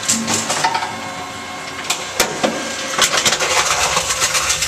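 Tomra T-53 reverse vending machine running as it takes in a bottle, with a few sharp knocks, then rapid clattering from about three seconds in.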